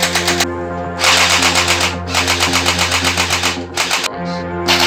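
Electronic music with a fast, even beat, mixed with the rapid rattle of a toy gel blaster firing on full auto.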